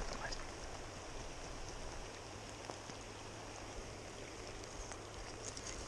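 Steady, even hiss of water, with a few faint ticks.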